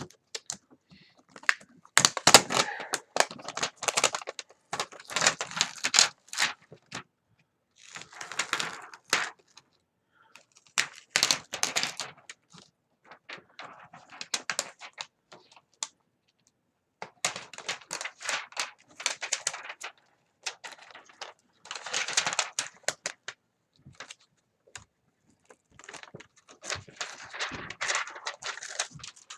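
Plastic parts of a gaming keyboard being handled and pried apart during disassembly: clusters of clicks, rattles and scraping in bursts of a second or two, with short pauses between.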